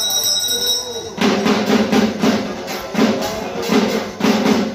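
A puja hand bell ringing, giving way about a second in to a dhak, the Bengali barrel drum of Durga Puja, beaten in a quick, steady rhythm of about three strokes a second.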